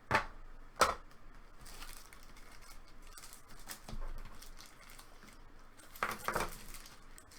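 Trading cards and their plastic holders being handled at a table. Two sharp plastic clicks come in the first second, then light rustling and small ticks, and a short louder handling noise about six seconds in.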